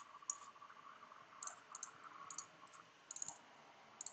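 Faint computer keyboard typing: scattered short key clicks, some in quick clusters of two to four.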